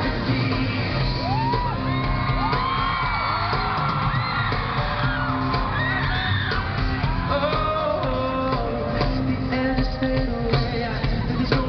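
Live pop-rock band playing in a large hall with a steady low bass line, while the audience screams and cheers in many high, rising-and-falling shrieks, thickest in the first two-thirds.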